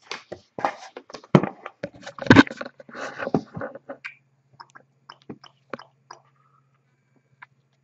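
Handling noises from boxes being moved in a cardboard shipping case: a run of scrapes, rustles and knocks, the loudest two about one and a half and two and a half seconds in, then thinning to scattered light clicks.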